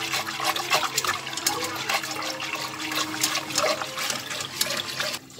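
A silicone-coated whisk stirring a thin milk and starch mixture in a stainless steel pot: liquid sloshing, with quick clicks and scrapes of the whisk against the pot. It stops abruptly just before the end.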